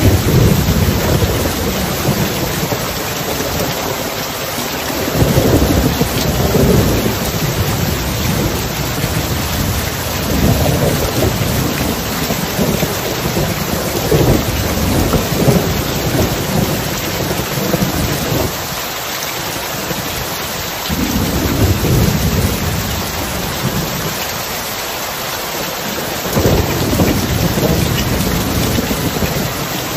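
Rain falling steadily, with low rolls of thunder swelling and fading every few seconds.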